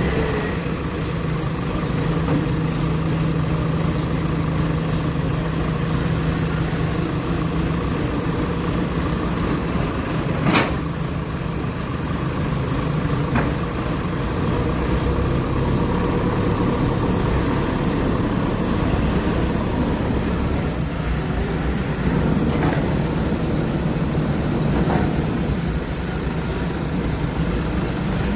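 Backhoe loader's diesel engine running steadily, with a sharp metallic knock about ten seconds in and a few fainter knocks later.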